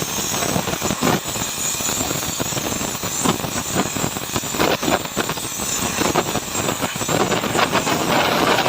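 Electric welding arc on an aluminium alloy wheel: a steady crackling hiss with irregular pops throughout.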